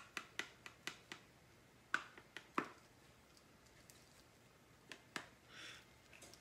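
Light irregular taps and clicks from a plastic grated-Parmesan shaker jar being shaken and knocked over a plastic measuring cup to work out cheese that is stuck. The taps cluster in the first three seconds, with two more near the end.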